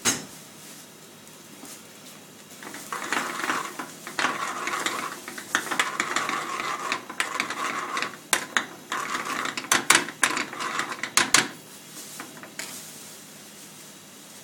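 A long-handled metal spoon stirring prawn bhuna in a frying pan on a high gas flame, scraping and clinking against the pan while the sauce sizzles. The stirring runs from about three seconds in until shortly before the end, with the sharpest clinks in its second half, and there is a single sharp knock at the very start.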